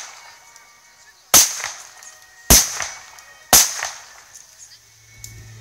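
Three gunshots from a reenactor's firearm firing blanks, about a second apart, each followed by a short echo.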